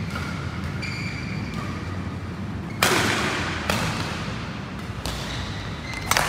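Badminton rackets striking a shuttlecock in a rally: four sharp hits about a second apart, the first the loudest, each ringing briefly in the hall.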